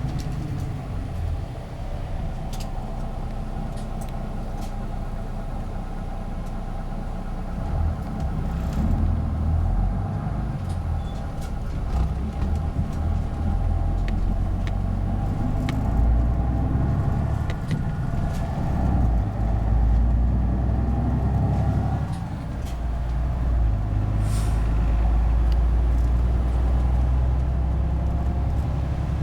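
Bus engine running, heard from inside the cabin, with scattered clicks and rattles. There is a short hiss of air about three-quarters of the way through.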